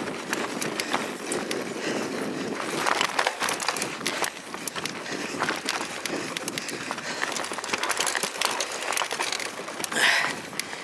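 Mountain bike riding over a dirt forest trail, heard from a camera mounted on the bike: steady tyre noise with a constant run of rattling clicks from the bike, and a louder scraping burst near the end.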